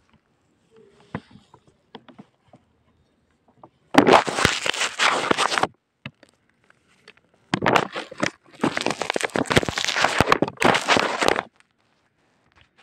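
Crackling, scraping rustle of the phone's microphone rubbing against a long-haired cat's fur. It comes in bursts: one about four seconds in, then a longer stretch from about seven and a half to eleven and a half seconds.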